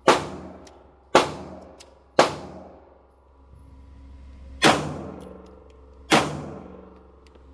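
Five gunshots, the first three about a second apart, then two more after a short pause, each trailing off in a long echo.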